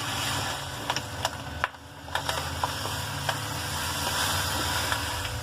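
Dishwasher salt poured from its packet into the dishwasher's salt reservoir: a steady grainy hiss with scattered ticks, pausing briefly about two seconds in.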